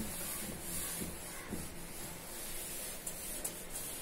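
A cloth wiping chalk off a blackboard: a dry rubbing hiss in repeated strokes. A few light knocks come near the end.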